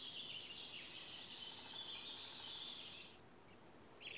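Birdsong: many small birds chirping together, high-pitched, faint and continuous, stopping about three seconds in. A few single chirps follow near the end.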